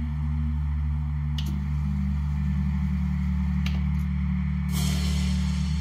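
Onkyo TA-6210 cassette deck's buttons and tape transport clicking a few times as the tape is wound back to its start, with a short rushing clunk near the end, over a steady low hum.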